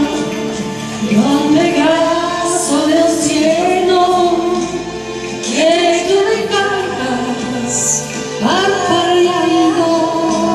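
A woman singing a slow song over instrumental accompaniment, in three long phrases of held notes with vibrato.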